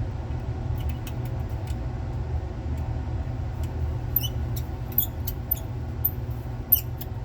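Small screwdriver driving a tiny screw into the cover of a 2.5-inch Seagate hard drive. Irregular short metallic clicks and squeaks build up after about four seconds, over a steady low hum.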